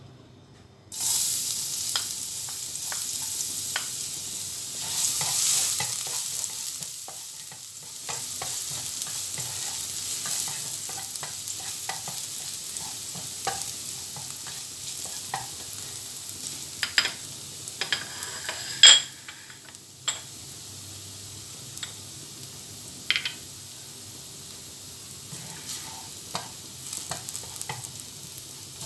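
Minced garlic frying in hot oil in a non-stick wok. The sizzle starts abruptly about a second in, and a wooden spatula stirs and scrapes the pan with scattered clicks. About two-thirds of the way through there is one louder clack.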